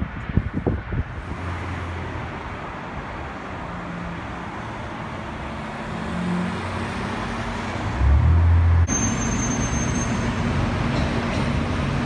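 Street traffic: cars passing with a steady rumble and engine hum, loudest about eight seconds in, with wind buffeting the microphone at first. About nine seconds in the sound changes abruptly to the steady rumble of idling traffic.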